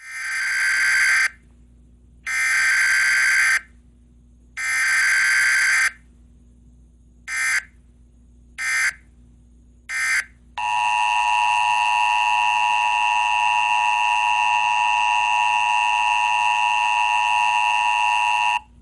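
Emergency Alert System tones from an EAS simulator app. Three long SAME header data bursts, about a second each, are followed by three short bursts. Then, about ten seconds in, the steady two-tone attention signal sounds for the last eight seconds.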